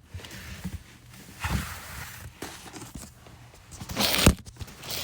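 Rustling and shuffling handling noise close to a dropped phone's microphone, swelling twice, with a sharp knock about four seconds in.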